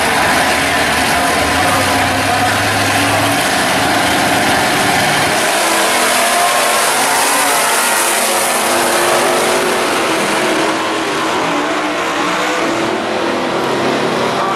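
Two drag cars, a white Dodge and a green fastback, run loud at the starting line, then launch at full throttle about five seconds in and accelerate hard down the strip, the engine note climbing.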